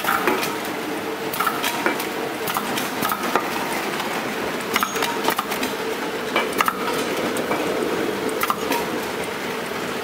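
CD/DVD sorting machine running with a steady hum, while the discs clatter irregularly against its metal chutes and each other as they are carried through and drop out. The discs are CDs and DVDs that have already been through the grinding machine.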